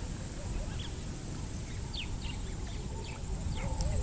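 Wetland bird calls: several short, high, falling chirps scattered through, with faint wavering lower notes near the end, over a steady low rumble.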